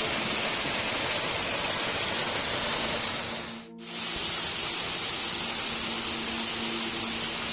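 Waterfall's rushing water, a steady loud hiss, under soft background music holding long notes. The water sound drops out briefly about three and a half seconds in, then comes back.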